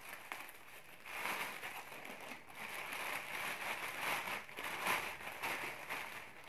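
Grey plastic poly mailer bag crinkling and rustling as it is cut with scissors and then handled and pulled open. The crinkling grows louder about a second in and goes on irregularly.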